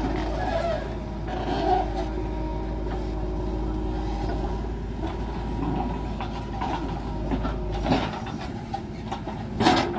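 JCB backhoe loader's diesel engine running steadily under load while the backhoe arm digs and lifts a full bucket of soil, with a knock about eight seconds in and a louder knock near the end.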